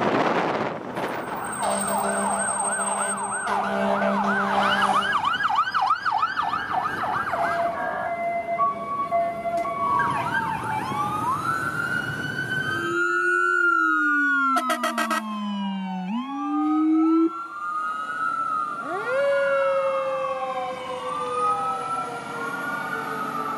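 A string of emergency-vehicle sirens edited together: a fast electronic yelp, then several overlapping wails rising and falling. Midway a deeper siren tone slides down and sweeps back up, with a short horn blast around the middle.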